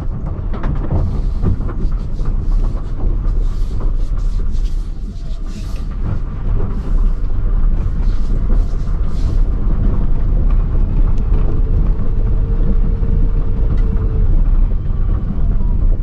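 Citroen Ami electric quadricycle driving along, heard from inside the small cabin: a steady low rumble of road and tyre noise, with intermittent crackling during the first half and a faint whine for a couple of seconds near the end.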